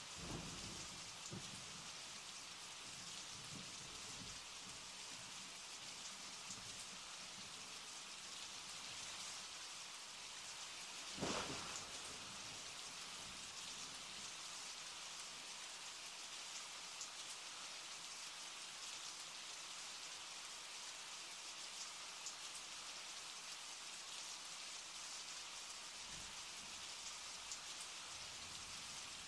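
Steady rain falling, an even hiss, with one sudden thump about eleven seconds in.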